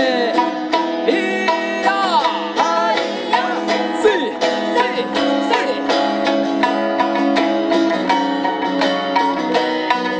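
Live acoustic band playing an instrumental break between sung verses: acoustic guitar and plucked strings keep a steady beat under a melody line that slides in pitch.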